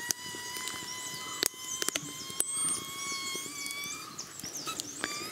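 Wood fire in a brick hearth with green chillies, tomato and onion roasting over the embers: a steady thin whistle that slowly rises in pitch, a few sharp crackling pops, and birds chirping.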